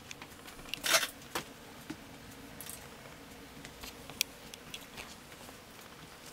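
A three-legged cat's paws and claws tapping and clicking lightly and irregularly on a hard floor as it walks, with a brief louder scuff about a second in.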